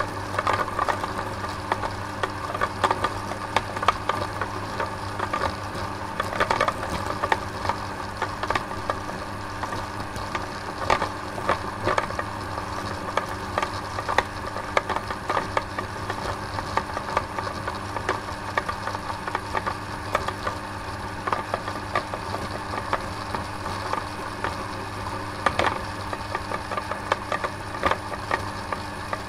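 Small electric machine running steadily: a constant low hum with irregular rattling clicks throughout.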